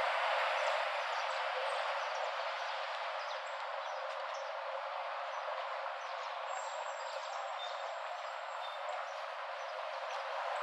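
Steady outdoor background noise with many faint, short, high chirps of small birds scattered through it.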